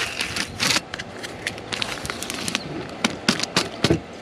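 Blue painter's tape being peeled off a freshly painted intake manifold lid and crumpled in the hand: irregular crackling with sharp snaps, several of the loudest near the end.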